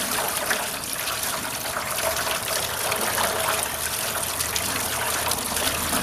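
Water from a garden hose running over a wooden birdhouse and splashing into a galvanized metal washtub: steady splashing, rinsing bleach solution off the house.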